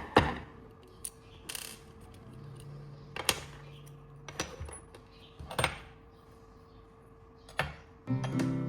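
Small metal parts clinking and knocking, several sharp separate strikes a second or so apart. Guitar music comes in near the end.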